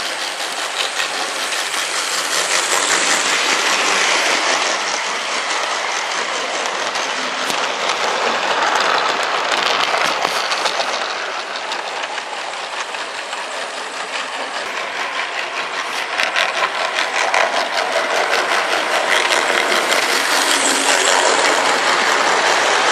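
Model trains running on a garden railway, their wheels clattering rapidly over the track. It grows louder and fades several times as trains pass close by.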